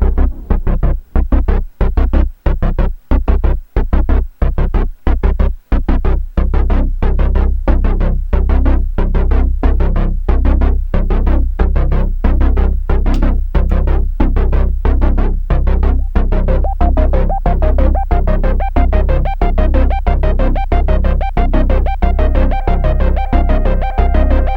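Electronic synthesizer music: a pulsing synth bass line repeating about two notes a second through a delay effect, joined about two-thirds of the way in by a higher repeating melodic line.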